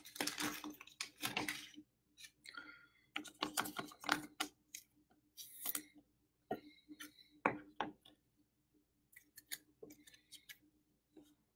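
Baseball trading cards being handled: irregular short clicks, slides and rustles as cards are flipped and shuffled through, busiest in the first couple of seconds.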